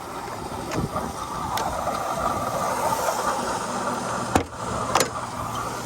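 2005 Mercedes-Benz CL600's twin-turbo V12 running steadily at idle, on all 12 cylinders now that the faulty ignition voltage transformer has been replaced. Two sharp clicks come about half a second apart near the end.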